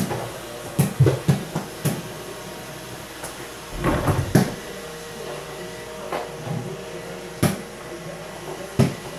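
A small rubber mini basketball knocking against a door-mounted hoop and bouncing on a hard floor: a quick run of bounces in the first two seconds, more thuds about four seconds in, then single sharp knocks later and near the end, with a faint steady hum underneath.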